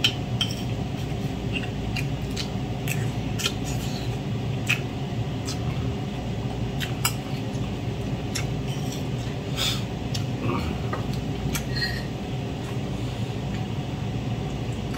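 Spoon and fork clicking and scraping on a ceramic plate during a meal, in scattered short taps over a steady low hum.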